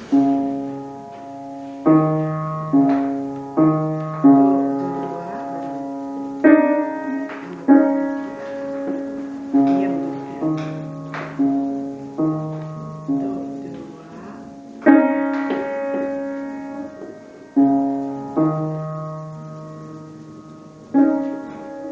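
A piano playing a slow piece of chords. Each chord is struck about once a second and left to ring and fade.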